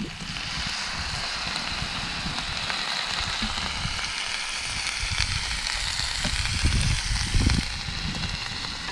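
Vegetables frying in a hot pan, a steady sizzling hiss that dies down about seven and a half seconds in, with occasional low thumps underneath.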